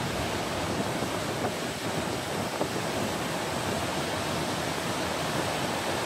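Gullfoss, a large waterfall, with its falling water making a steady, even rush and no breaks.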